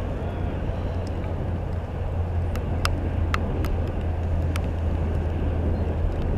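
Steady low outdoor rumble on the camera's microphone, with a few sharp ticks in the middle.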